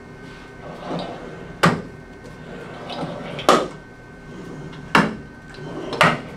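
Mini C-arm of an Orthoscan FD Pulse being swung through its joints by hand: four short sliding sounds, each ending in a sharp clunk as the arm stops.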